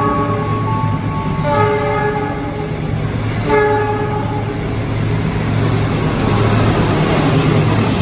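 Diesel-electric locomotive hauling a freight train sounds its multi-tone horn three times in the first half: a long blast, then two shorter ones. Under the horn its engine hums steadily, and from about halfway the rumble of the locomotive and its wagons grows as the train runs past close by.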